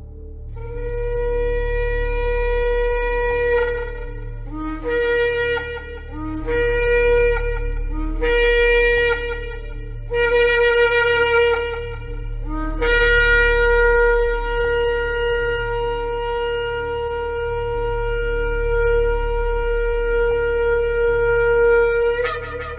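Shofar blown in a series of calls: one long blast, then four shorter blasts that each step up from a lower note, then a very long held blast of about nine seconds that jumps higher at the very end. A steady low hum runs underneath.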